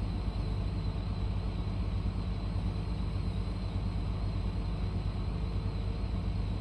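Heavy mining machinery's large diesel engines running steadily in a deep, even rumble.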